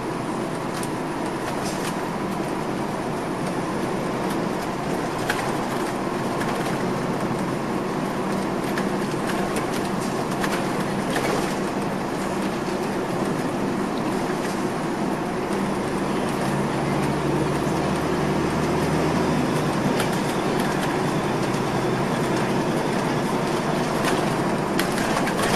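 Cabin noise aboard a 2004 MCI D4500CL coach under way: its Caterpillar C13 diesel running, with road noise and scattered short clicks and rattles. About two-thirds of the way through, a deeper engine tone comes up for a few seconds and then drops away.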